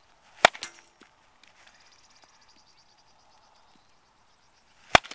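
A baseball bat hitting a ball twice, about four and a half seconds apart, each a sharp crack. Between the hits there is a faint, fast-pulsing high trill like a bird's.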